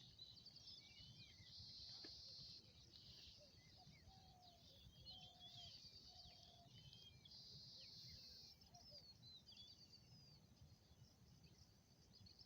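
Faint birdsong: many short high chirps and trills, with three short, lower whistled notes about four to six seconds in. A few high hissing stretches of a second or two come and go over it.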